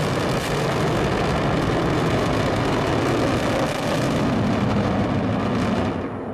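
Soyuz-U rocket's engines firing in flight: a steady, loud rushing rumble, whose hiss drops away about six seconds in.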